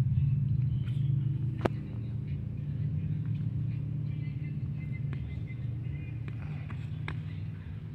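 A steady low rumble, with a few sharp slaps of boxing gloves striking pads, the loudest about a second and a half in.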